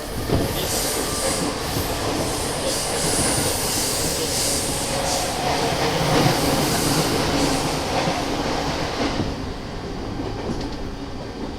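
E217-series commuter train motor car running at speed, heard from inside the car: steady rail and wheel rumble with a high wheel squeal over it that eases off about nine seconds in.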